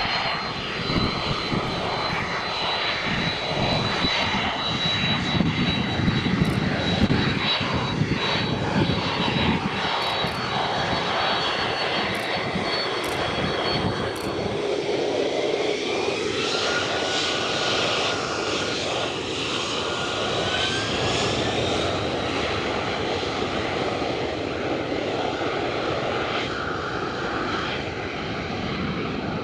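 Boeing 767-300F freighter's twin General Electric CF6 turbofans running with a steady jet whine as the plane taxis onto the runway; around the middle the whine rises in pitch as the engines spool up toward takeoff thrust.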